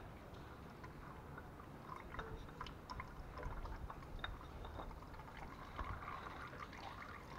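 Engine oil dripping and trickling from the oil filter mount into a drain basin as the filter is unscrewed, with scattered small clicks. It grows a little louder after about two seconds.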